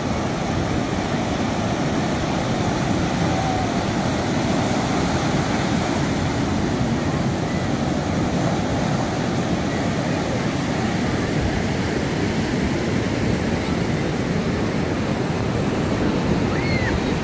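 Ocean surf breaking and washing up the beach, a loud, steady rushing noise.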